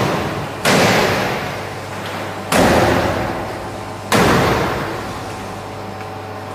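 Three loud bangs about every one and a half to two seconds, each followed by a noisy wash that dies away over a second or so, as cheese curd is filled into plastic moulds on a stainless-steel draining table, over a faint steady machine hum.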